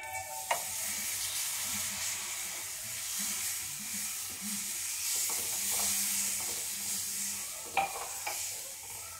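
Hot butter-and-flour roux sizzling steadily in a nonstick frying pan as a wooden spatula stirs it and milk is poured in to start a white sauce, with a couple of light taps of the spatula against the pan.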